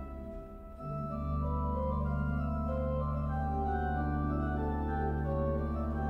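Pipe organ playing sustained chords over a deep held bass note. The bass drops out for a moment at the start and comes back about a second in, while the upper notes move from chord to chord.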